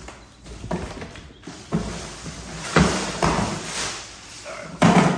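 Rummaging in a cardboard shipping box to pull out a loose part: rustling and scraping with several knocks and thumps, the loudest near the end.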